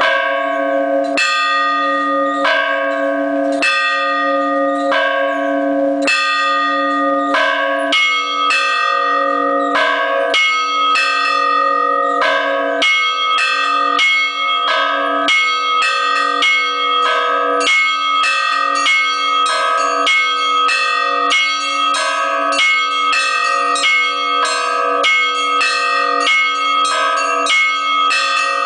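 Orthodox church bells rung by hand in a zvon. A bell is struck slowly, a little under once a second. From about eight seconds in, several higher bells join in a quicker, rhythmic peal over it.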